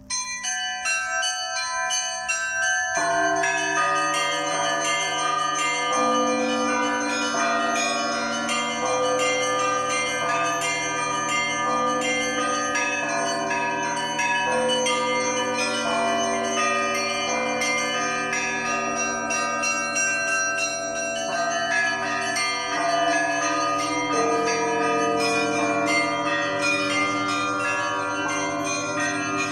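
Church bells ringing together in a Russian zvon, many strikes overlapping and ringing on. Small high bells start it, and lower, heavier bells join about three and six seconds in.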